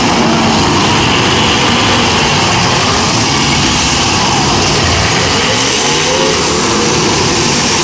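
Engines of several demolition derby cars running and revving together as a loud, steady din, with a few revs rising in pitch about five to six seconds in.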